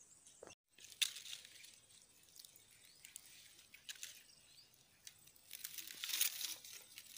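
Faint rustling noise that swells briefly about a second in and again for about a second near the six-second mark, with a short dead gap in the sound just before the first swell.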